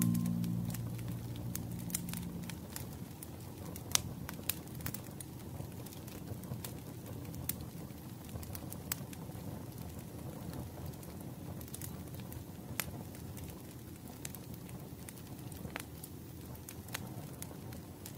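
Wood fire crackling in a fireplace: scattered sharp pops over a soft, steady low rumble. Background music fades out in the first couple of seconds.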